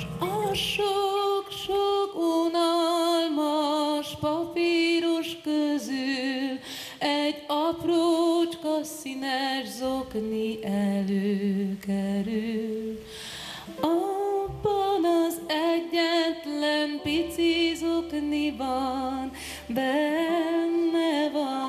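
A woman singing a slow melody live into a microphone, with vibrato on long held notes and short breaks between phrases.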